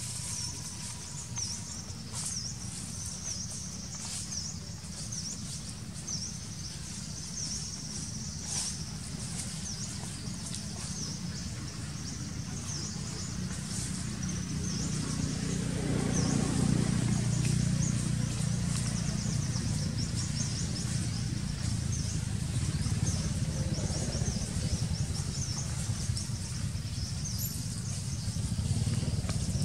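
Outdoor ambience: birds chirping in short, repeated high calls, most often in the first few seconds, over a steady low rumble that swells for a few seconds midway.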